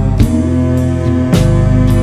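Background music: a rock track with guitar and a drum kit, the drums hitting about every second.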